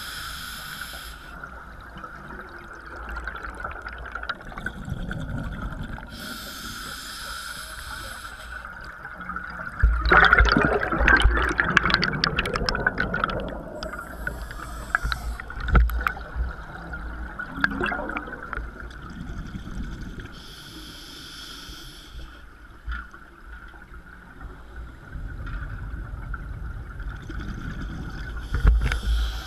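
Underwater scuba breathing through a regulator: a hiss on each inhale, about every six seconds, alternating with gurgling, rumbling rushes of exhaled bubbles, the loudest about ten to thirteen seconds in.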